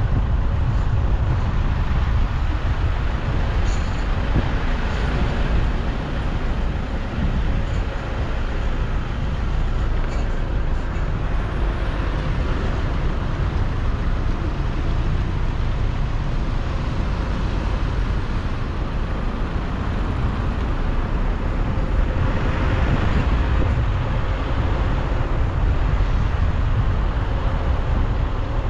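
Steady street traffic with a heavy low rumble, mixed with wind buffeting the microphone; the noise swells a little twice, as if vehicles pass.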